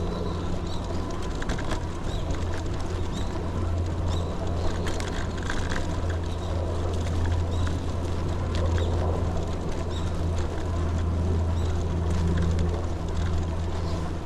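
Steady low hum and road noise of a vehicle in motion, with a faint steady higher tone above it.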